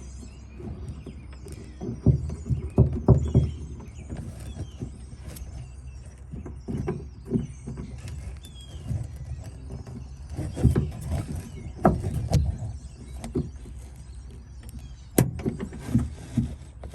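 Irregular clunks, knocks and rattles of a replacement window regulator being worked into place inside a Dodge Caravan's door, parts bumping against the door's sheet-metal shell. Clusters of knocks come about two seconds in, again around ten to twelve seconds, and near the end.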